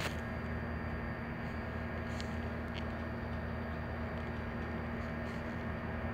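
Steady mechanical hum, as of a running motor or fan, with a few faint clicks around two to three seconds in.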